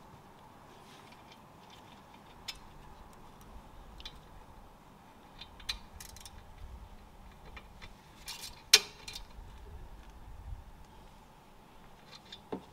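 Hand tools working on a car's brake assembly during a brake pad change: scattered metal clicks and clinks, with one sharp, loud metallic clank about two-thirds of the way through.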